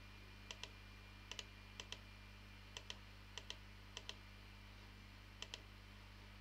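Computer mouse button clicks: about seven quick double clicks (press and release) at irregular intervals, over a faint steady low electrical hum.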